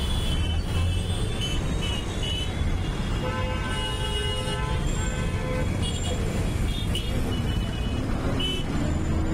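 Steady low rumble of a moving bus on the road, with vehicle horns: several short toots in the first couple of seconds and again near the end, and one long horn blast from about three seconds in, lasting about two and a half seconds.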